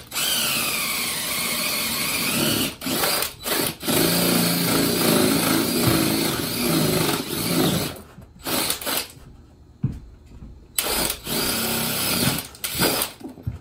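Cordless drill boring a hole out through the wooden sill plate of a house wall. It runs in several long bursts with short stops between them, and its whine sags as the bit bites in, then recovers.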